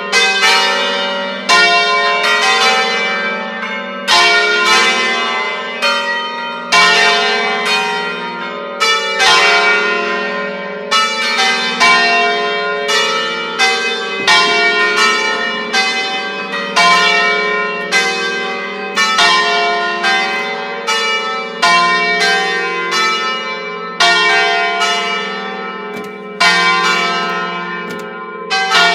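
Five-bell Ambrosian-system church peal in F3 ringing its pre-programmed solemn concerto (concerto solenne). The bells strike in turn about once a second, each stroke still ringing under the next.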